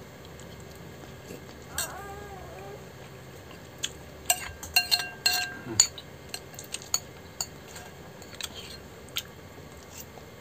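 Cutlery clinking and scraping against a dish of instant noodles during eating, with scattered sharp clicks bunched together about halfway through.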